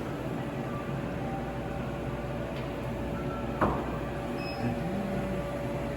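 Steady indoor ventilation hum with a faint steady tone, broken by one sharp click about three and a half seconds in as the vending machine's power plug goes into the wall outlet.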